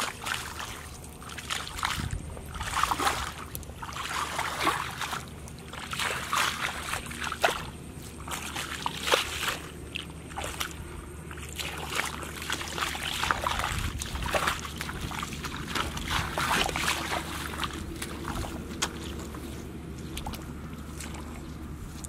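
Bare feet wading through shallow muddy water, sloshing and splashing step after step, growing quieter near the end.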